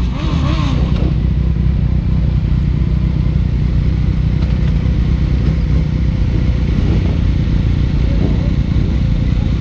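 Motorcycle engines idling steadily at close range, after a short rev that dies away in the first second.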